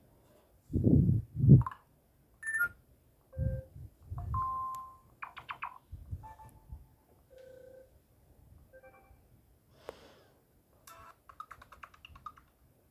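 Series of short electronic sounds from a smartphone's speaker: brief beeps and tones at several different pitches, with a few low thumps in the first few seconds.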